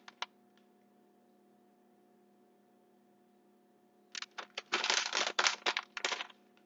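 Plastic bag of shredded cheese crinkling as it is handled and shaken out: a brief rustle at the start, then a denser run of crinkling about four seconds in, lasting about two seconds. A faint steady hum lies underneath.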